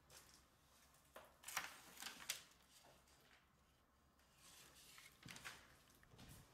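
Near-silent room tone with faint crunches, rustles and a few sharp ticks of someone moving about on a rubble-strewn floor, most of them between about one and a half and two and a half seconds in.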